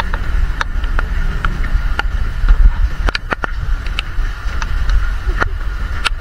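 Rain and wind buffeting a handheld camera's microphone as a deep, uneven rumble, with scattered sharp ticks of raindrops striking the camera.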